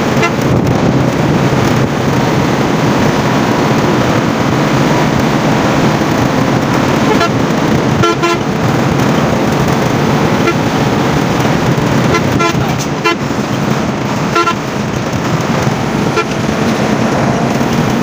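Intercity bus running at highway speed, heard from inside: a steady mix of engine and road noise. Short vehicle-horn toots come about seven and eight seconds in, and several more between twelve and sixteen seconds.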